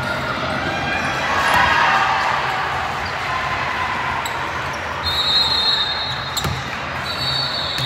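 Basketball being dribbled and bounced on a gym floor, with background voices. Two high, steady squeals come about five and seven seconds in.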